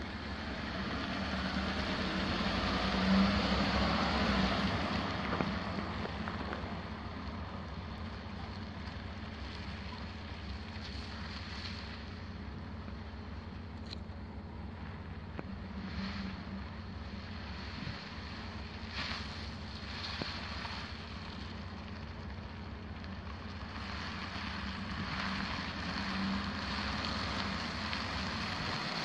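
Ford F-150's 5.0L V8 idling steadily, with wind buffeting the microphone, strongest a few seconds in.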